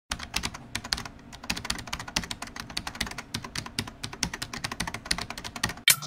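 Computer-keyboard typing sound effect: fast, irregular clicks, several a second.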